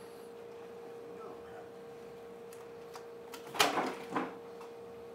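A steady faint hum, then about three and a half seconds in a sharp knock with a short scraping rattle and a second smaller knock: a chair pushed back against a table as a man gets up from it.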